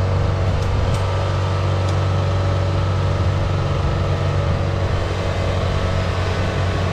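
Kubota combine harvester's diesel engine running with a steady low hum as the machine eases its header onto steel bridge ramps.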